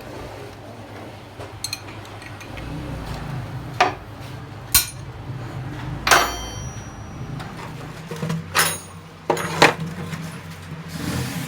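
Metal parts and tools clinking and knocking against each other, about five separate strikes, the loudest about six seconds in ringing on briefly, over a steady low hum.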